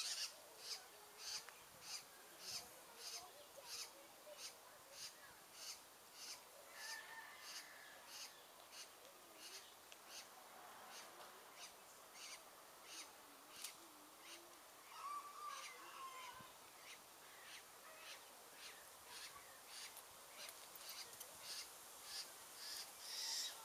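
Faint outdoor ambience: a high, thin chirp repeating steadily about three times every two seconds, with a few faint bird calls, one near the middle.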